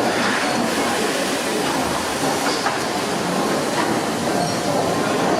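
Fowler steam ploughing engine running, a steady, dense mechanical noise with a few faint irregular knocks.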